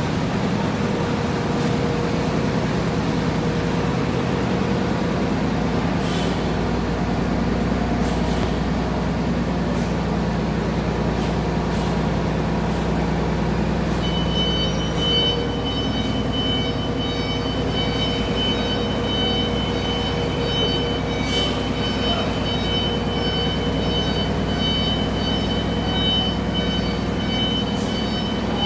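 Coach bus diesel engine running steadily, with several short hisses. A steady high whine joins about halfway through.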